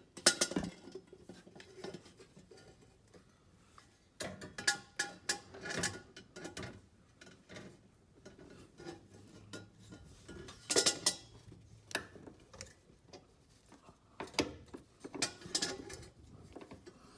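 Metallic clinks, knocks and rattles in irregular clusters, from a steel exhaust downpipe being worked into place against its flanges and bolts during a test fit.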